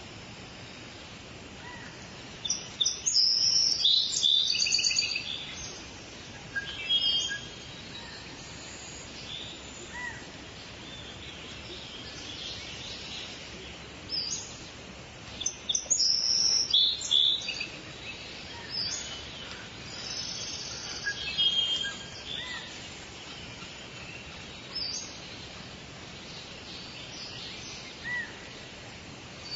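Forest songbirds singing in short bursts of high chirps and trills, the busiest around three to five seconds in and again around fifteen to seventeen seconds in, with scattered single calls between, over a steady faint background hiss.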